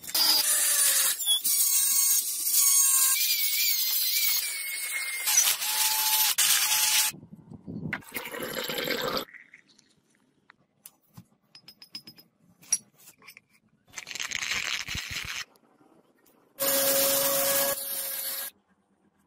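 Power grinders working steel in separate bursts: several seconds of loud grinding with high whistling tones at first, shorter bursts in the middle, and near the end a belt grinder sharpening the edge of a steel axe head, with a steady tone under the grinding.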